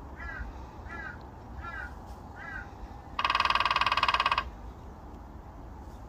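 A bird calls four times, evenly spaced. Then a grey-headed woodpecker drums on the tree trunk: a fast, even roll of strikes lasting just over a second, with a ringing tone, much louder than the calls.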